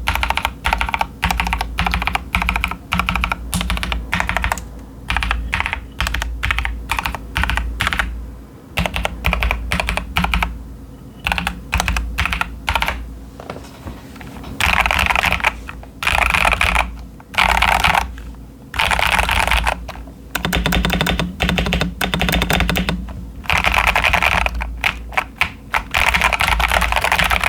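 Typing on a modded CIY Tester 68 mechanical keyboard fitted with stock Ashkeebs Auralite linear switches and Cherry-profile dye-sub PBT keycaps. The board has tape on its PCB, towel foam in the case and lubed stabilizers. Keystrokes come in a steady stream, with several stretches of fast, dense typing in the second half.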